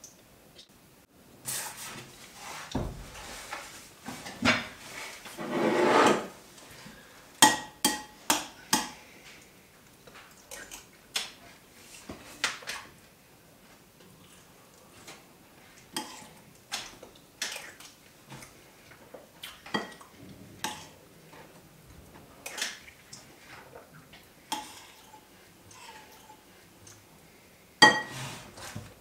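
Spoon clinking and scraping against a ceramic bowl while eating, in irregular clinks, some with a short ring. A longer, louder rustle comes about five to six seconds in, and a sharp clink near the end.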